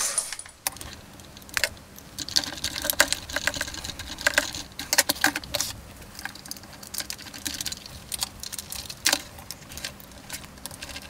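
Irregular small clicks and taps of hard plastic toy parts being handled and fitted together, with a small screwdriver turning a screw into the leg joint of a vintage Kenner AT-ST toy.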